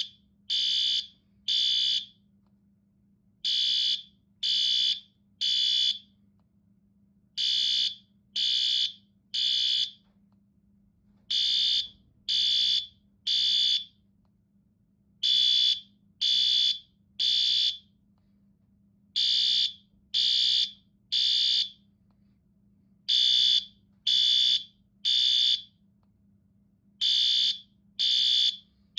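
Fire alarm sounding the temporal-three evacuation pattern: three loud, high-pitched beeps, then a pause, repeating about every four seconds.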